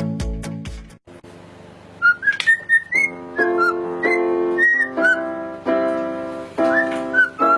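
Music: a dance track with a heavy beat cuts off about a second in. After a short gap, a whistled tune with sliding notes begins over repeated chords on a keyboard or plucked instrument.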